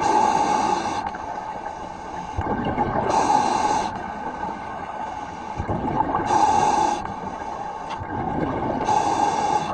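A commercial diver breathing through a demand regulator, four breaths drawn in about every three seconds, with a steady hum running underneath.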